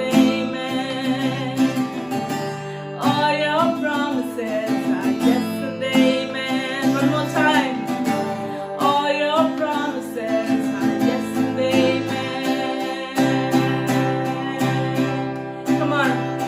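Worship music: acoustic guitar strumming steady chords under a sung melody.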